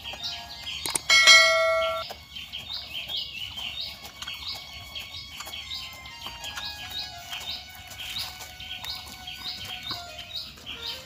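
A click, then a single bell ding that rings out and dies away over about a second: the notification-bell sound effect of a subscribe-button animation. Underneath, a steady chorus of high, rapidly repeated bird chirps.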